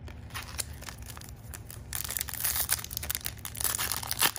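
Foil wrapper of a basketball trading-card pack crinkling and tearing as it is ripped open by hand. The crackling gets louder about two seconds in.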